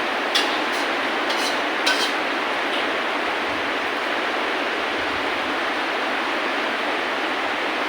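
Steady hiss of falling rain, with a few sharp taps of drops in the first two or three seconds.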